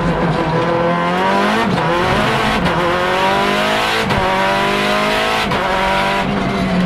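Lancia Delta Integrale EVO Proto's turbocharged 2.0-litre four-cylinder engine heard from inside the cabin, revving up hard under full acceleration. Its rising note is broken several times by quick sequential-gearbox upshifts, each a short cut and drop in pitch, and the revs level off near the end.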